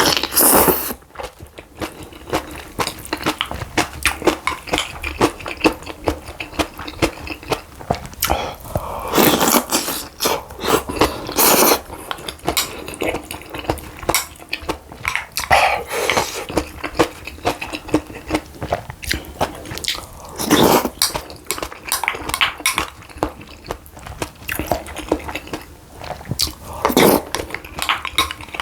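Close-miked eating from a meal of acorn jelly rice soup and pan-fried dumplings: chewing and biting, with light clicks of utensils on the dishes. Several louder bursts stand out, about six over the stretch.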